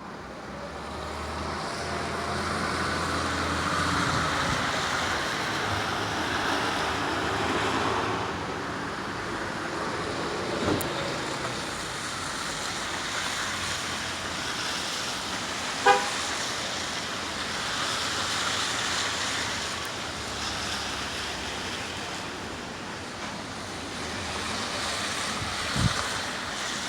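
Steady traffic noise of cars driving along a snowy city street, with one short car horn honk about halfway through, the loudest sound.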